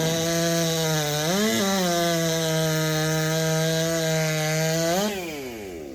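A 90cc-class two-stroke racing chainsaw running flat out through a cut. Its pitch briefly rises and falls back about a second and a half in. About five seconds in the throttle is released and the engine's pitch falls away as it winds down.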